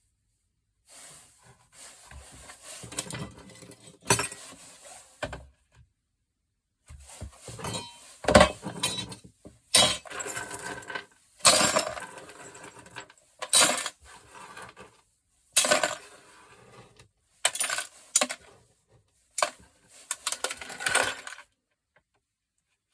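Small steel screws and scrap pieces clinking and rattling as they are tipped and dropped into a container to be weighed, in repeated bursts with short pauses between them.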